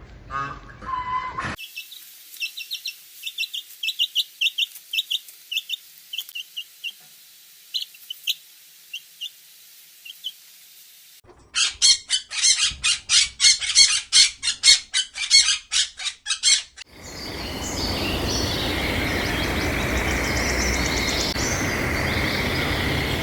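Birds chirping: short high chirps for the first ten seconds or so, then a run of rapid, loud chattering calls for about five seconds, followed by a steady noisy background with faint calls.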